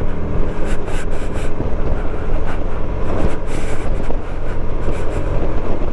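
Wind rushing and buffeting over a motorcycle helmet microphone, with the bike's running noise underneath, while riding and speeding up from about 40 to 50 mph. Steady heavy rumble with irregular gusts.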